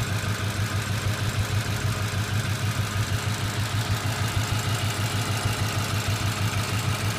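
Car engine idling steadily with a rapid, even ticking in its beat, the ticking noise the owner is recording.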